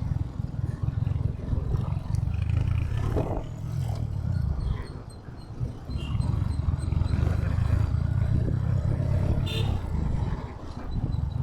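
Royal Enfield Hunter 350's single-cylinder engine and exhaust thumping while riding in city traffic, the sound dipping briefly about five seconds in and again near the end.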